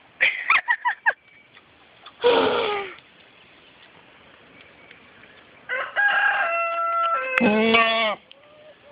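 A rooster crows, a long call of held flat pitches about six seconds in, and a Nubian goat gives loud, human-like yelling bleats, one cutting in at the end of the crow. Short chopped calls come in a quick run in the first second.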